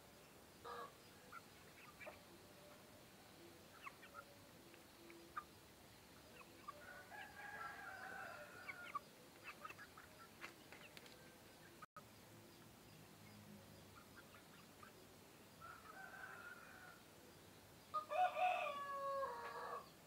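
Layer-breed cockerel crowing, with one loud crow near the end. Fainter calls come earlier, with a few short clucks.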